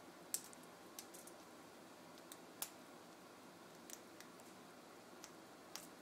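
Faint, irregular sharp clicks and taps, about seven or eight in all, as a male eclectus parrot works with its beak at a toy monkey hanging on a chain.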